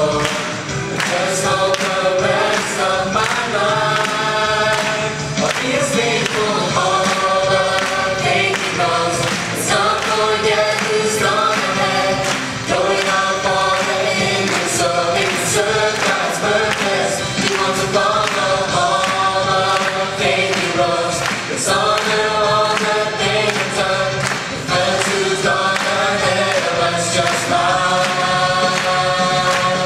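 A choir singing a worship song about heroes of faith with musical backing, in long held phrases with brief breaks between lines.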